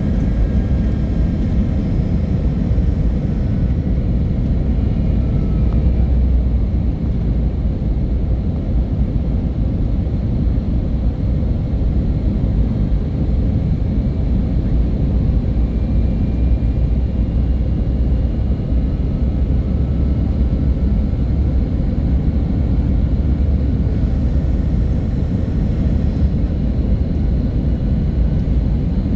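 Airliner engine and airflow noise during the landing: a steady, loud low rumble with faint steady tones above it.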